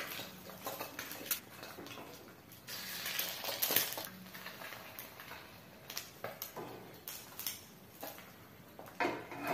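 Stainless steel wok handled on a stove, giving a few light metal knocks and clinks at irregular intervals.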